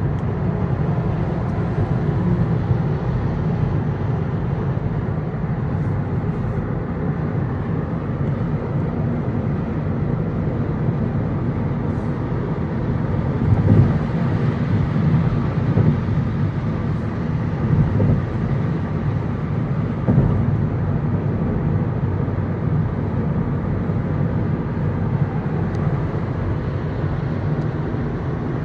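Steady road and tyre noise inside a Kia Forte GT's cabin at freeway speed, a low even rumble with a few brief louder bumps about halfway through.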